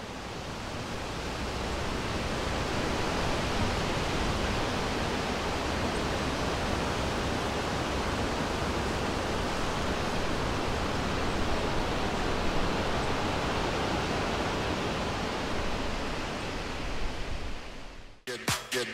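A steady, even hiss of noise that fades in over the first couple of seconds, holds level, then cuts off suddenly near the end. Electronic dance music with a strong beat starts right after the cut.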